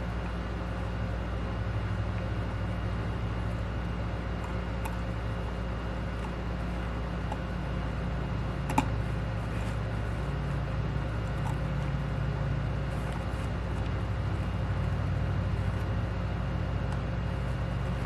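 Small clicks and taps of screws and a screwdriver against a plastic motor housing, one sharper click about nine seconds in, over a steady low hum.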